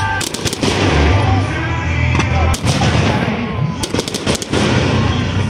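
Aerial fireworks shells bursting: sharp bangs in clusters about half a second in, in the middle, and a rapid run around four seconds in, over a steady low rumble.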